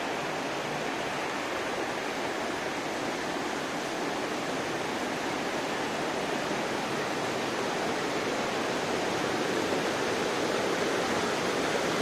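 Steady rush of a stream flowing over rocks below a footbridge: an even, unbroken water noise that swells slightly near the end.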